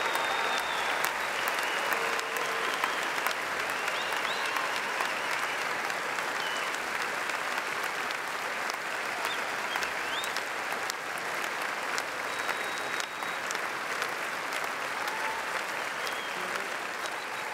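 A large concert audience applauding steadily, easing off slightly over the seconds.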